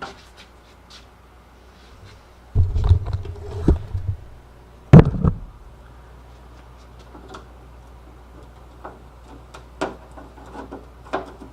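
Knocks and clicks of hand work on a car door while its exterior door handle is worked loose: a cluster of knocks about two and a half seconds in, one loud sharp knock at about five seconds, then light scattered clicks.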